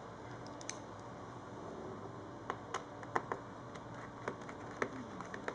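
Scattered light clicks and taps from handling a precision screwdriver kit and the laptop's base, most of them in the second half.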